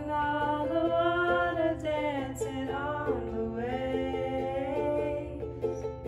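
Two women singing a worship song to a strummed small acoustic string instrument, unamplified in a small room.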